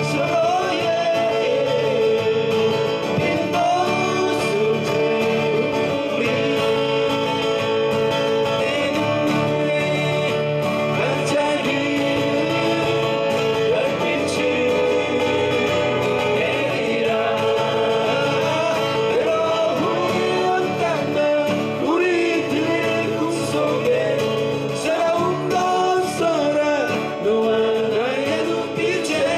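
Two acoustic guitars playing with male voices singing, a live acoustic duet song that runs without a break.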